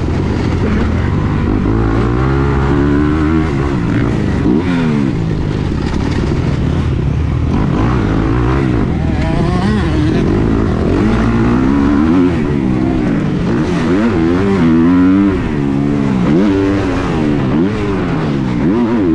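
Motocross bike engine heard from on board, revving up and dropping back over and over as the throttle opens and closes through the corners and gear changes of a dirt track.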